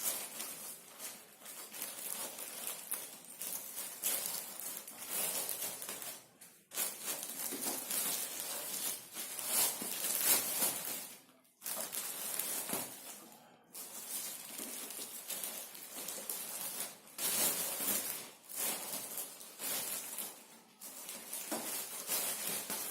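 Plastic wrapping rustling and crinkling in irregular handfuls as a MIDI keyboard is unwrapped from its cover, with brief pauses.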